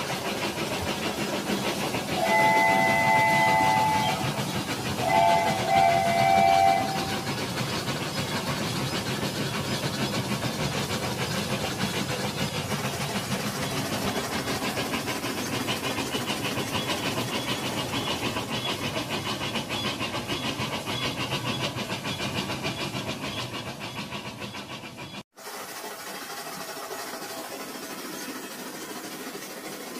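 Battery-powered Rail King toy train running on plastic track: a steady whir and fast clicking rattle from the motor and wheels. Two short electronic steam-whistle toots from the toy's sound unit come about two and five seconds in. The sound cuts off suddenly near the end and goes on quieter.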